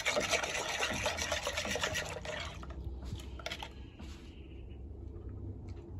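A metal utensil stirring a thick pumpkin and coconut-milk rice mixture in an aluminium pot, scraping and sloshing for about two and a half seconds, then a few light knocks before it goes quiet to a low steady hum.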